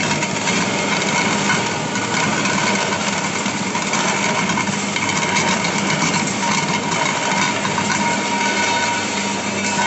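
Powered roller clay crusher running steadily, a constant mechanical hum with a steady whine over it, as lumps of wet clay are fed between its rollers to crush out stones and shards.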